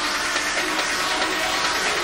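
Industrial techno played live from a DJ controller setup: a dense, noisy, steady texture in the mids and highs, with little bass.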